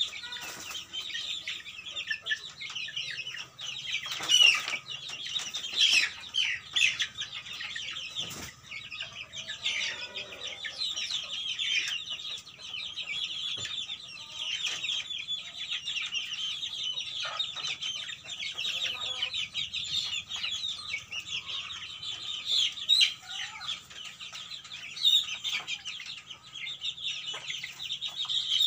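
A flock of young kampung (Indonesian native) chickens clucking and calling continuously, with a few louder calls now and then.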